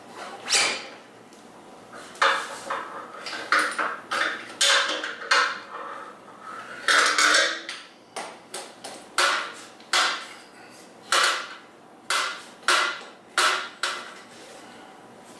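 Irregular sharp metallic clanks and clinks, some ringing briefly, from hand tools and metal parts knocking together while a motorcycle's front end is being worked on. The strikes come every half second to a second or so, with a louder cluster about seven seconds in.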